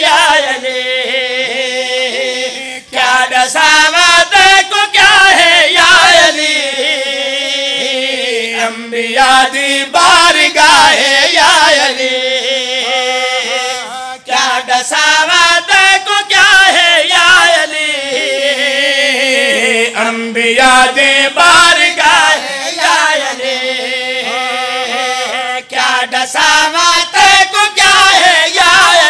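Two men singing a Punjabi qasida together without instruments, in long held phrases that swell and bend in pitch, with short breaths between lines.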